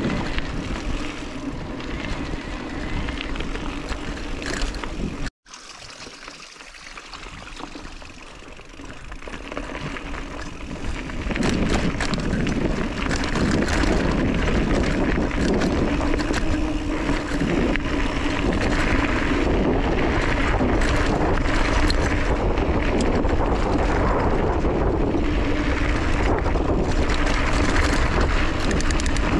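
Wind buffeting the camera microphone and tyres rolling over a dry dirt track on a moving mountain bike, with a steady hum underneath. The sound cuts out abruptly about five seconds in, returns quieter, and builds louder from about eleven seconds on.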